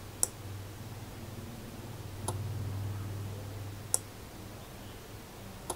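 Relay on a small relay module clicking four times, about every two seconds, as a capacitive touch sensor in latching mode toggles it on and off, switching a lamp. A low steady hum runs underneath.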